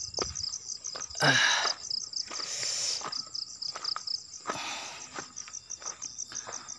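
Night insects, crickets by their sound, chirping in a steady, rapidly pulsing high trill. A few short noisy swishes break in, the loudest about a second in.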